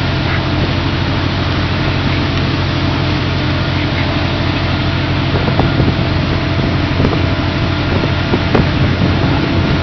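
Steady drone of a fishing vessel's deck machinery running: a low hum with a broad rushing noise over it and a few light knocks.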